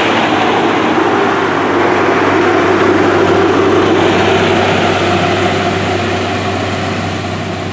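A John Deere combine harvester working wheat: its diesel engine and threshing machinery run with a steady, loud hum. The sound fades gradually over the last couple of seconds.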